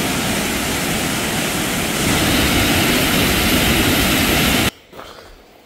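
Loud, steady rushing of a fast-flowing stream, cutting off suddenly near the end.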